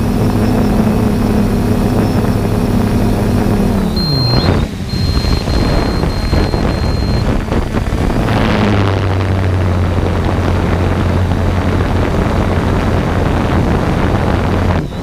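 3DR Solo quadcopter's electric motors and propellers humming steadily, heard from the onboard camera over a rushing noise. About four seconds in the hum falls in pitch, with a few short high beeps, and a few seconds later it settles into a lower steady hum.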